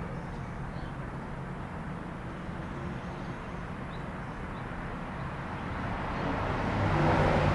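A machine running with a steady hum and hiss, growing louder near the end.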